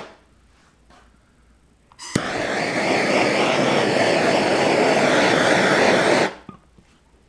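Handheld gas torch flame running with a steady hiss for about four seconds, starting with a sharp click about two seconds in and stopping a little after six seconds. The flame is being passed over wet epoxy resin to bring air bubbles out.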